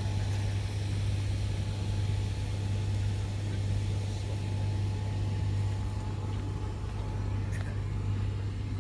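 A steady low engine hum with a faint steady whine above it, unchanging throughout.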